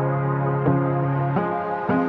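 Background music: a calm ambient instrumental track of sustained notes that change about every half second to second.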